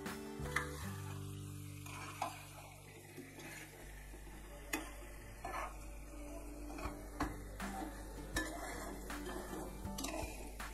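A metal spoon stirring and scraping chicken in a thick masala in a metal pot, clinking against the pot every second or so. Under it is a soft sizzle of frying as the masala is cooked down until the oil separates.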